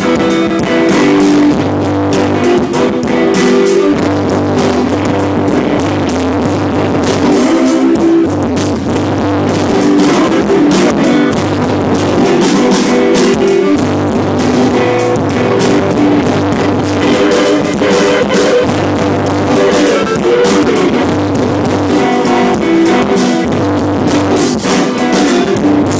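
Rock music on acoustic guitar, with a steady beat from drums and low bass notes that change every second or two.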